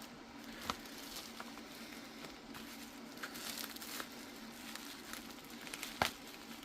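Packaging being handled: crinkling and rustling of plastic and cardboard with scattered small clicks, the sharpest about six seconds in.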